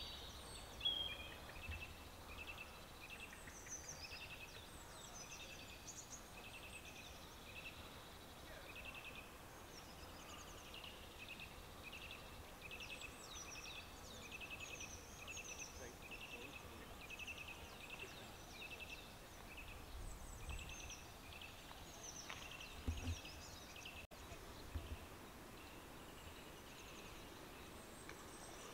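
Faint birdsong from several small birds: one repeats a short high note about twice a second while others chirp higher over it. There is a light background hiss and a couple of low bumps late on.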